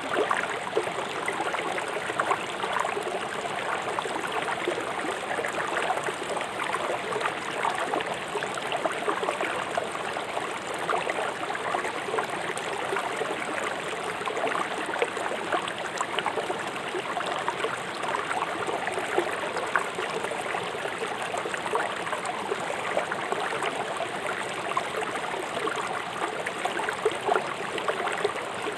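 River water rushing swiftly over rocks, a steady splashing and gurgling stream.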